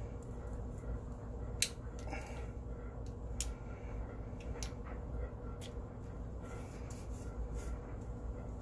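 Scattered sharp clicks and taps as a small metal tool and a tin of cigarillos are handled on a table, the loudest about one and a half seconds in, over a low steady hum.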